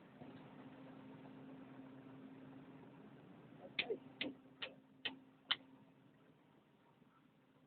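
Five sharp taps or knocks, evenly spaced at about two a second, over a faint steady hum.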